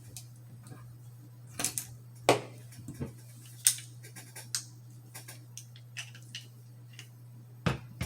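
Irregular metallic clicks and knocks from a single-action .45 Colt revolver being handled and taken apart for cleaning, about a dozen sharp strikes spread out, the loudest a little over two seconds in. A steady low hum lies underneath.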